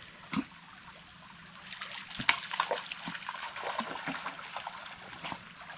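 A dog splashing and pawing in shallow creek water, with quick irregular splashes and sloshes from about a second and a half in, over the creek's steady trickle.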